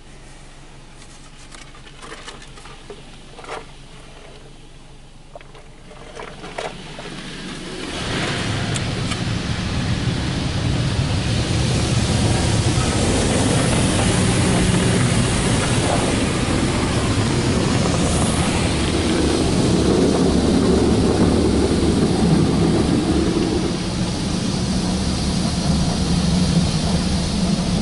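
Belanger Saber SL1 touch-free car wash spraying water onto a car, heard from inside the cabin: a quiet hum with a few drips and ticks, then about eight seconds in a loud, steady rush of spray on the body and glass with a low rumble underneath.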